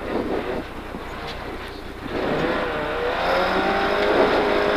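1300-class rally car's engine heard from inside the cabin, fairly quiet for about two seconds as the car comes through a tight right-hander. Then the engine picks up, its pitch climbing and the sound growing louder as the car accelerates out.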